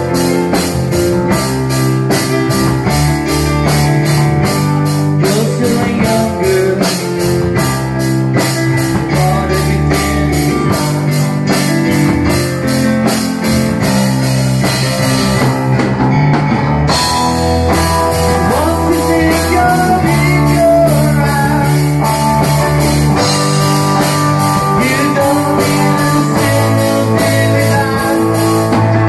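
Live rock band playing: drum kit, bass guitar, electric guitar and a Korg Krome keyboard, with a man singing at times.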